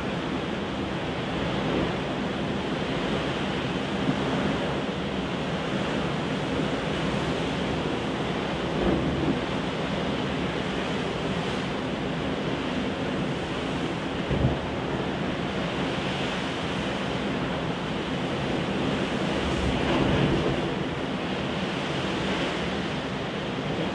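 Heavy storm surf breaking and washing around a breakwater, a steady rushing roar that swells and eases, with wind buffeting the microphone. A few louder thumps stand out, the strongest about midway.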